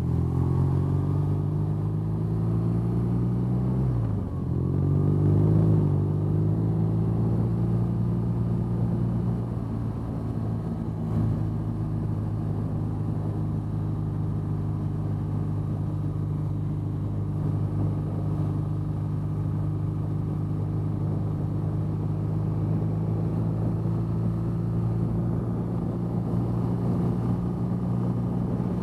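BMW R nineT's 1170 cc air/oil-cooled boxer twin running at a steady cruise. About four seconds in the engine note drops, then climbs again and grows louder before settling back to a steady pitch.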